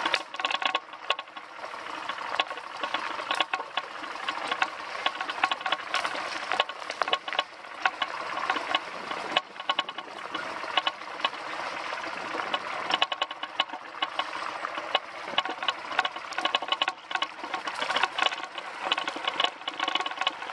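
1991 BMW R100GS Paris-Dakar's air-cooled flat-twin boxer engine running at low speed off-road, with constant rattling and frequent sharp clicks and knocks as the bike jolts over rough ground.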